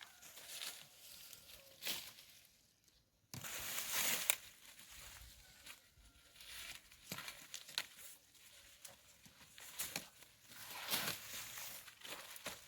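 Dry maize leaves and husks rustling and crackling in irregular bursts as cobs are picked by hand, with sharp clicks and snaps in between.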